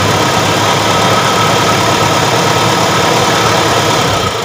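Toyota Kijang engine running at raised revs with its engine-driven radiator fan spinning; a steady mechanical sound with a constant high tone in it. No sound of the fan blades striking the radiator, though they sit only about 5 cm from it.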